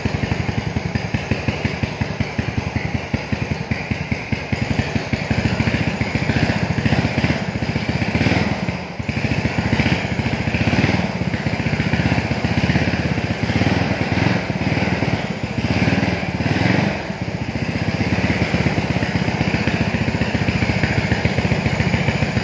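Motor scooter engine running steadily, revved by hand on the throttle several times in the middle stretch with brief dips between the revs, then settling back to a steady run.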